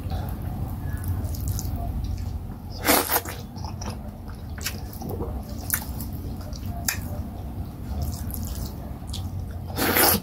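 Eating sounds of fufu and vegetable soup eaten by hand: scattered wet, squishy clicks of mouth and fingers over a steady low hum, with two louder wet slurps, about three seconds in and again near the end as a handful goes to the mouth.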